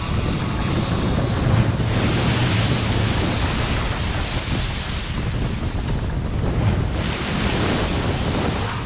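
Strong wind buffeting the microphone over the steady rush of breaking waves and spray around a sailing catamaran in rough open sea, with a deep rumble underneath.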